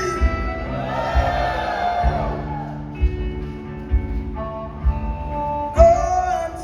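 Live blues band playing a slow instrumental passage: electric guitar and long, bending harmonica notes over a steady drum beat.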